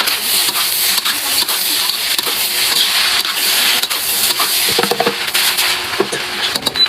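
Fried rice sizzling as it is stir-fried in a pan, with the spatula clicking and scraping against the pan throughout.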